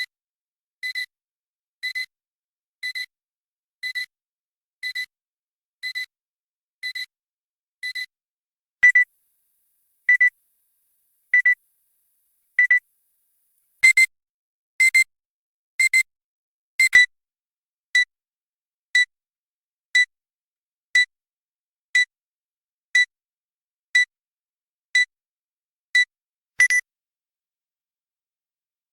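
Electronic health-warning beep sound effect: a short high electronic tone repeating about once a second. The first beeps come as quick doubled pips. From about eight seconds in they are single, louder and spaced a little wider, then settle back to once a second and stop about two seconds before the end.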